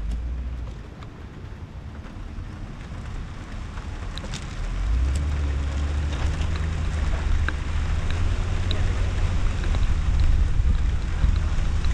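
A car driving on wet pavement, heard from a camera on its roof: wind rumble on the microphone and tyre hiss grow louder as the car moves off a few seconds in. Scattered light ticks of drops sound throughout.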